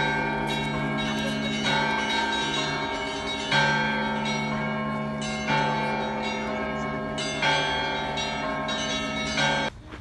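Russian Orthodox church bells ringing, with a fresh strike about every two seconds. Each strike rings on and overlaps the next. The ringing cuts off abruptly near the end.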